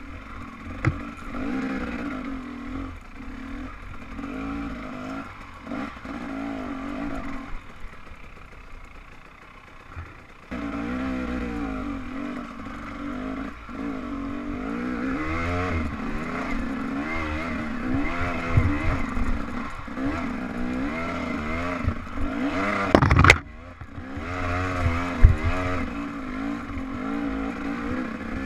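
Dirt bike engine running along a trail, its pitch rising and falling with the throttle. It eases off for a couple of seconds, then picks up again sharply. Clattering from the bike runs underneath, with one loud, sharp knock about three-quarters of the way through.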